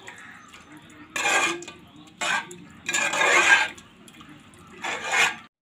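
A metal spoon stirs a thick tripe curry in a metal pot. It scrapes against the pot with wet, sloshing sounds in four separate strokes.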